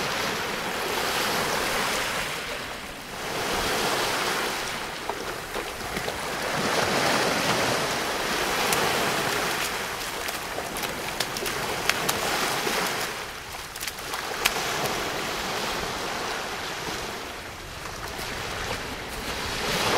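Sea surf washing on the beach, its rush rising and falling in waves every few seconds, with a few faint sharp clicks.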